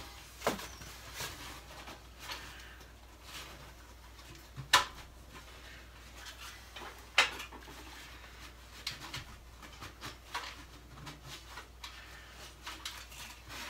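Gloved hands working inside the top of a wood stove, pulling out crushed fiberglass wool insulation that was blocking the flue: scattered light scrapes and knocks against the stove, with two sharper knocks about five and seven seconds in.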